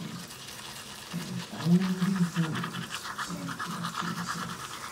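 Manual toothbrush scrubbing the tongue and teeth through a mouthful of thick foam, wet rhythmic strokes growing stronger from about halfway in. Short stretches of a voice-like sound come in between.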